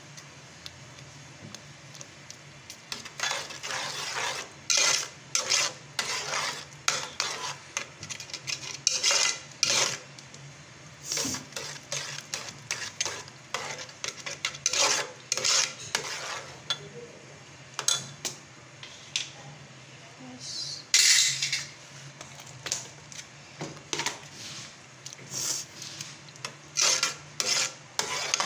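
A steel slotted spoon stirs and scrapes thick semolina halwa against an aluminium pot in irregular strokes, starting about three seconds in, as the sugar and colour are mixed into the cooking halwa.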